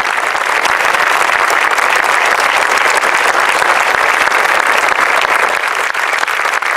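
A crowd applauding: many hands clapping in a dense, steady patter.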